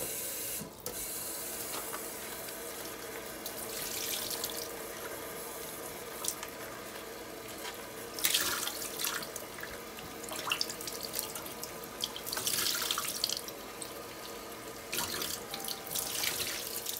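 Kitchen faucet running into a stainless steel sink while a plastic basket of mushrooms is rinsed under the stream, the splashing swelling in several louder surges as hands turn the mushrooms in the water.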